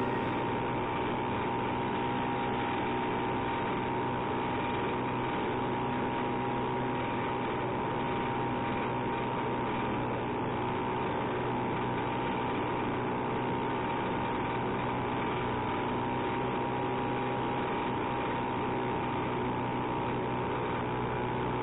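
1969 Ski-Doo Olympic 320 snowmobile's two-stroke engine running at a steady speed while riding, a constant drone that holds one pitch throughout.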